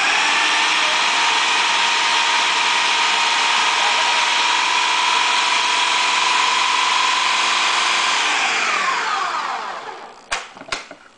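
Countertop blender motor running at full speed, chopping whole cranberries, oranges and sugar into sauce; about eight seconds in it is switched off and spins down with a falling whine. Two sharp clicks near the end.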